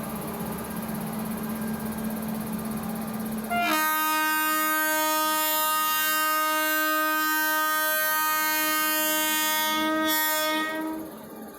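WAP-5 electric locomotive's twin-tone horn sounding one long, steady blast of about seven seconds as the train departs. The horn starts about three and a half seconds in over a steady hum and cuts off near the end.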